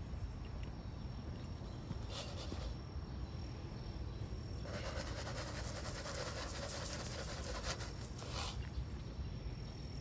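Bird seed being poured and scattered onto the ground: a grainy, pattering hiss lasting about four seconds from around the middle, after a shorter burst about two seconds in. A faint steady insect tone carries on underneath.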